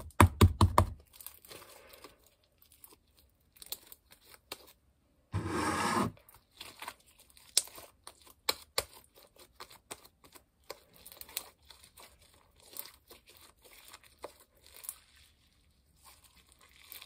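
Borax slime being kneaded, stretched and pulled apart by hand, giving sticky crackling, popping and tearing sounds. A dense run of loud pops comes in the first second, and a louder noisy burst about five seconds in.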